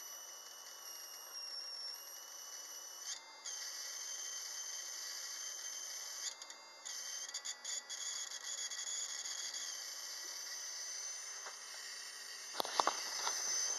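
A 12-volt ignition coil being fired by a MOSFET driver circuit gives a steady high-pitched electrical whine of several stacked tones, cutting out briefly a few times. A few sharp knocks come near the end.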